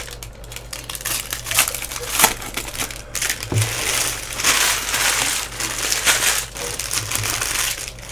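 Trading-card pack wrappers crinkling and crumpling as packs of cards are handled and opened, with irregular crackles and clicks.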